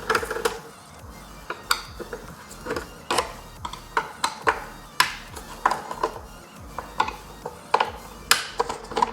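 T20 Torx driver undoing the screws of a car door mirror: a run of sharp, irregular clicks and taps of the tool and screws against the plastic mirror housing.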